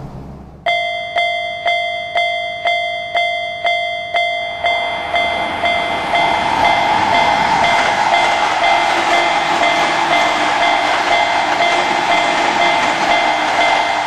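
Level crossing warning bell ringing steadily at about two strikes a second. About four and a half seconds in, a passing train's rumble joins under the bell and continues as it goes by.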